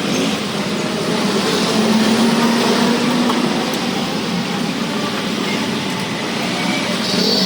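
Electric pressure washer running steadily, its water jet spraying, with a low hum from the pump motor.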